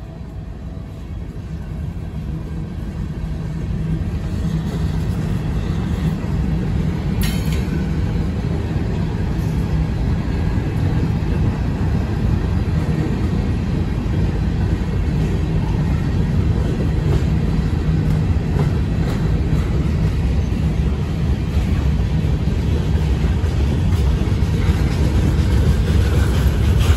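Freight cars of a long manifest train rolling past close by: steel wheels running over the rails in a steady heavy rumble that builds over the first few seconds. There is one brief sharp noise about seven seconds in.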